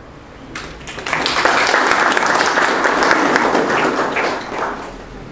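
Audience applauding: many hands clapping, starting about half a second in, quickly growing loud and dying away near the end.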